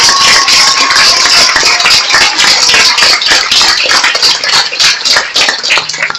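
Large theatre audience applauding: loud, dense clapping that thins out near the end.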